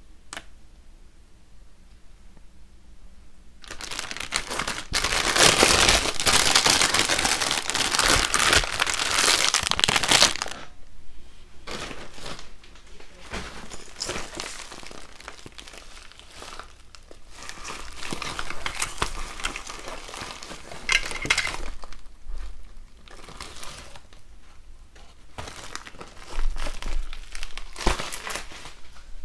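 Plastic packaging crinkling as it is handled. A loud stretch of crinkling starts a few seconds in and lasts about six seconds, followed by shorter rustles on and off, with a sharp click near the end.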